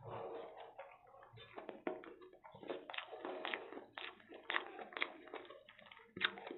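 Close-miked chewing of a mouthful of egg chow mein noodles, with many short, sharp mouth clicks.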